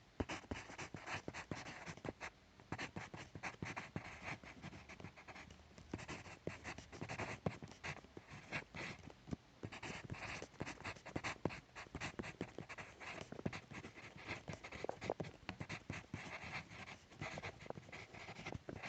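Graphite pencil writing on paper: a continuous run of quick, scratchy strokes, several a second, with a few brief pauses between words.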